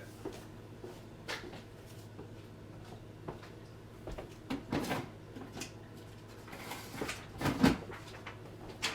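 Scattered light knocks and rustles of objects being handled on a tabletop, the loudest pair near the end, over a faint steady electrical hum.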